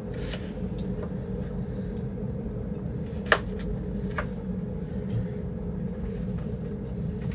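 Kitchen knife cutting potatoes on a plastic chopping board: a few scattered sharp knocks, the loudest about three seconds in, over a steady low background hum.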